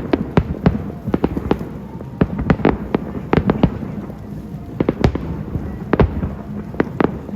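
Fireworks going off: irregular sharp bangs and pops, often several in quick succession, over a steady low rumble of further bursts.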